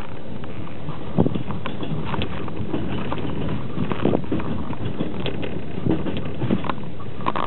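Passenger train running at speed, heard from inside an open-plan sleeper carriage: a steady rumble of wheels on rails with irregular knocks and clacks from the running gear and car body.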